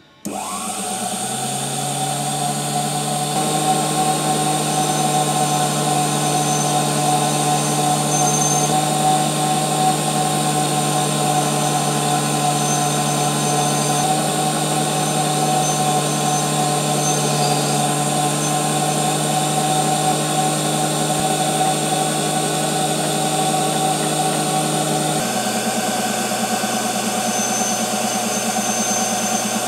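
Unimat miniature lathe's electric motor switching on and spinning up to speed, then running with a steady hum and whine while the tool turns a metal blank.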